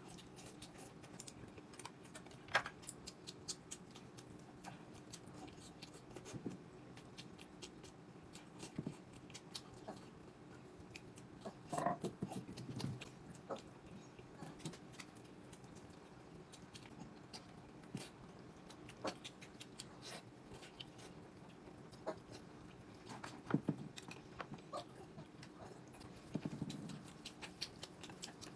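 Mealtime eating sounds: scattered light clicks and taps of chopsticks and tableware, with some chewing, over a faint steady low hum. A few louder clusters of taps come about twelve seconds in and again near the end.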